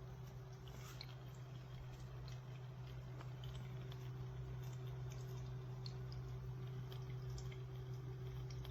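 Pet water fountain running: its pump gives a steady low hum, with light, irregular drips and splashes of water.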